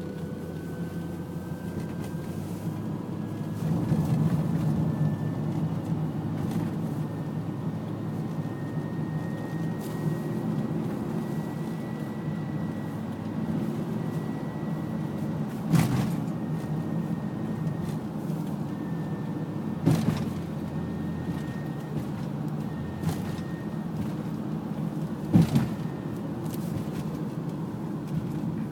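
2002 Honda Odyssey heard from inside the cabin while accelerating. A steady grinding drone runs under a thin whine that climbs slowly in pitch and then holds. The grinding comes only on the gas and was not cured by a transmission repair. A few sharp knocks break in toward the middle and the end.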